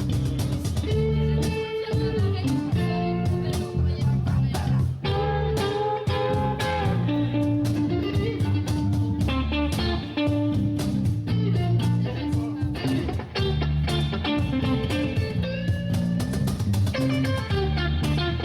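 Live blues-rock band playing an instrumental passage: electric guitar lines over bass and drums, with no singing.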